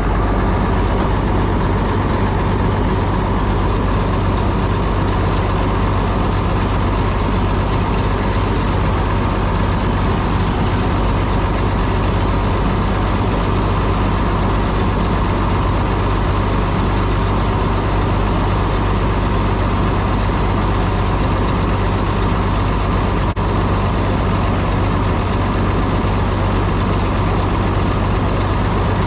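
Combine engine idling steadily as it warms up just after a cold start.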